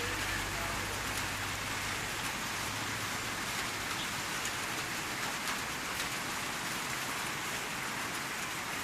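Steady rain falling, a continuous hiss with scattered drop taps; a low hum underneath fades out a few seconds in.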